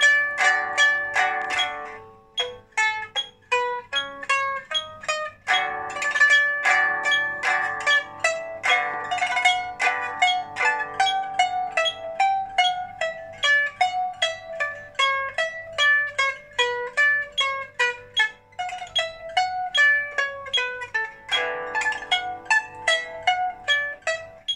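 Solo pipa played with fast, dense plucked notes and stretches of rapidly repeated notes. About two seconds in the playing thins out to sparser, quieter notes before the dense playing picks up again.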